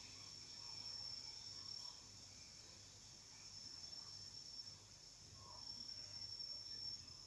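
Near silence: a faint, steady high-pitched whine over a low hum.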